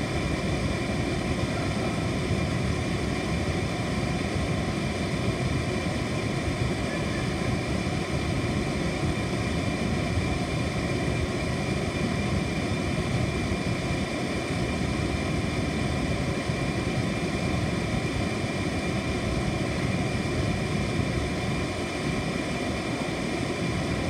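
Air conditioner running steadily: an even rush of air with a low hum underneath and several faint steady tones above it.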